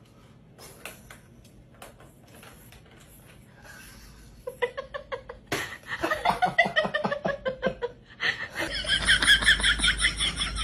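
Faint scattered knocks, then from about four and a half seconds in a person laughing hard in rapid pulses that fall in pitch. About nine seconds in this gives way to a louder, higher-pitched pulsing sound over a low hum.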